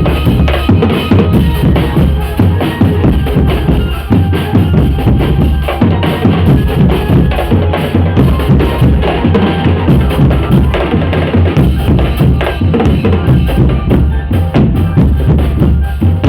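Drum band playing a loud, steady, fast beat on bass drums and snare drums.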